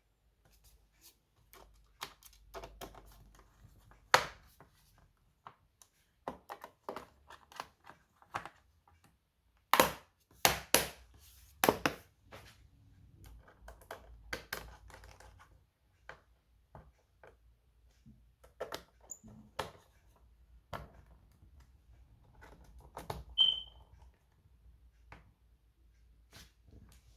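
Hands working on an HP EliteBook laptop: irregular clicks, taps and knocks of plastic and small metal parts, with a loud cluster of knocks about ten seconds in and a brief high tone near the end.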